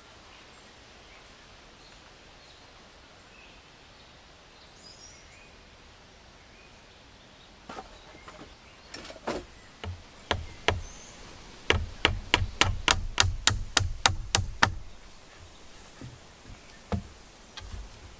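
A tool striking wood in sharp knocks: a few scattered blows, then a quick run of about a dozen at roughly four a second, then a couple more. Quiet outdoor ambience with faint bird chirps comes before the strikes.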